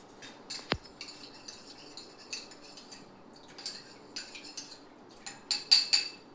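Metal utensils and dishes clinking and clattering against each other in irregular knocks with a short metallic ring, the loudest cluster near the end.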